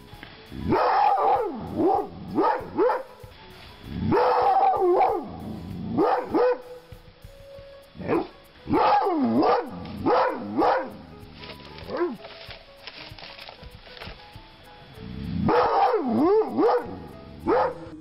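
A dog barking excitedly in clusters of high, yelping barks whose pitch rises and falls, with short pauses between the bouts.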